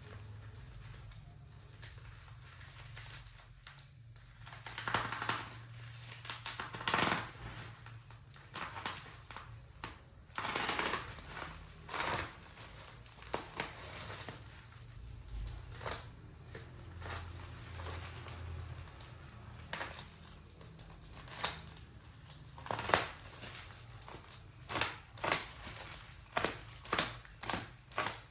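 Packaging of a boxed keyboard being opened and handled: cardboard and wrapping crinkling and scraping in irregular bursts, then a run of sharp separate clicks near the end.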